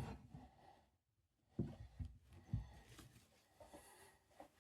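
Faint handling sounds: a few soft knocks and rustles as the air rifle and gun lock are moved about.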